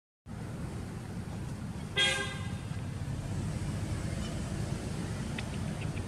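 A short vehicle horn toot about two seconds in, over a steady low background rumble of distant traffic.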